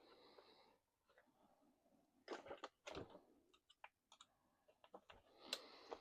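Faint clicks and scrapes of small tools and plastic parts on an RC truck chassis being worked on, with a few sharp clicks scattered through and short rustles a little after two seconds and near the end.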